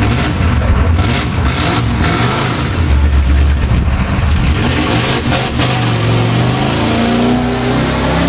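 Mud-bogging pickup truck's engine revving hard under load as it churns through a mud pit; the engine note grows louder and climbs in pitch over the last few seconds.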